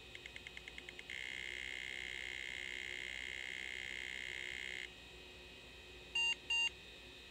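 A 486 PC booting through its power-on self-test: a quick run of about nine short high tone pulses, then a steady high electronic tone for almost four seconds that stops suddenly. Near the end, two short beeps about a third of a second apart, the loudest sounds, come from the PC speaker as an AMI BIOS beep code.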